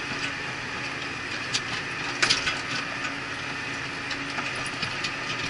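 Steady drone of a Cat Challenger 535B tractor running in the field while pulling a tedder, heard inside the cab. A few sharp clicks and rattles stand out about two seconds in.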